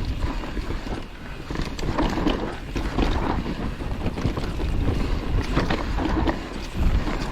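Mountain bike riding fast down a dirt trail: tyre noise over dirt and rock with repeated knocks and rattles from the bike over bumps, and wind buffeting the microphone.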